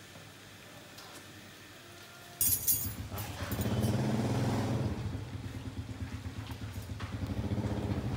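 Motorbike engine running with a rapid, even pulsing beat. It starts suddenly about two and a half seconds in, after a faint low background.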